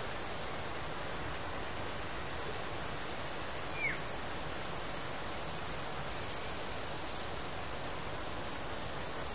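Steady high-pitched drone of insects in the riverside vegetation, with one short falling chirp about four seconds in.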